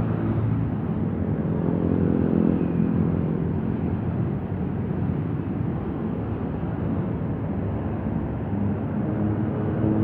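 Diesel locomotive drawing a passenger train in at low speed, its engine a steady low drone.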